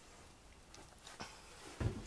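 Quiet room tone with a few faint clicks and one short, low thump near the end.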